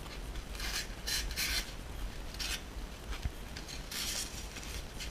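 Cardboard shipping box being handled and its flaps opened: a series of short, dry scraping rubs, several in quick succession near the start and another about four seconds in, with one small knock in between.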